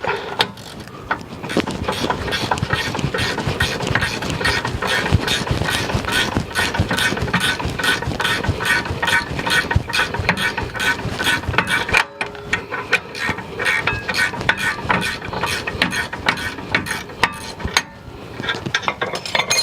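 Ratcheting wrench clicking rapidly and steadily as it spins out a loosened brake caliper bracket bolt, with a short pause partway through.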